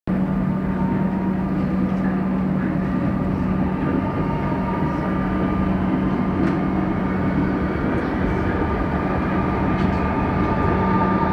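Melbourne Metro electric commuter train running at speed, heard from inside a carriage: a steady rumble of wheels on rail with a constant whine over it.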